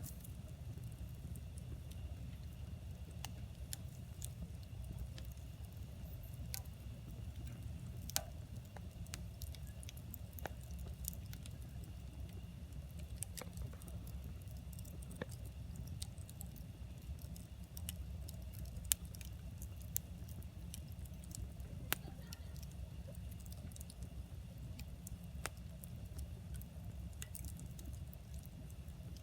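Wood campfire crackling: irregular sharp pops and snaps of burning firewood, a few louder than the rest, over a low steady rumble.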